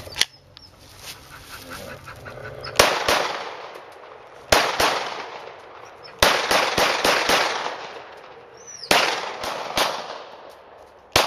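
Glock 17 9mm semi-automatic pistol firing in short strings of shots: a single shot or a pair, then quicker runs of several, with a pause between strings. Each shot echoes and dies away over a second or more. A sharp click comes right at the start as the pistol is readied.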